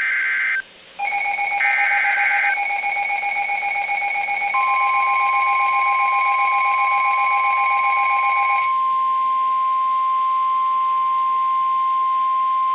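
NOAA Weather Radio alert tones: the last of the short, screechy digital SAME header bursts, with a pulsing electronic alarm sounding from about a second in until near nine seconds. From about four and a half seconds a single steady 1050 Hz warning alarm tone sounds to the end, marking that a warning follows.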